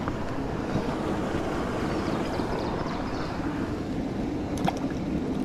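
Steady low rushing outdoor noise at the riverbank, with a couple of sharp clicks about four and a half seconds in.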